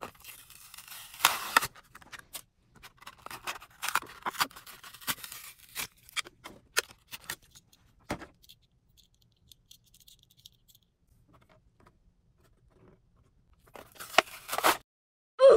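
Packaging being handled and torn open: irregular rustling, scraping and tearing with scattered sharp clicks, in two busy stretches with a quiet spell in the middle.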